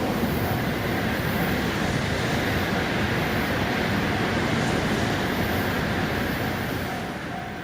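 A JR Tokaido Line train passing over a level crossing: a steady rush and rumble of wheels on rail that eases near the end. The crossing's alarm bell rings in even pulses throughout and is heard clearly again as the train noise fades.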